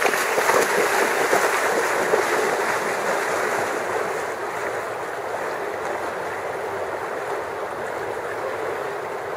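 Feet splashing as two people run into a shallow river, over the steady rush of the flowing water. The splashing dies down after the first couple of seconds, leaving the even rush of the river.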